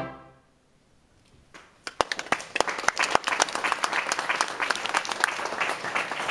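A wind band's last chord dies away in the hall's reverberation, then after a second of near silence audience applause starts, a few scattered claps at first, building to steady clapping by about two seconds in.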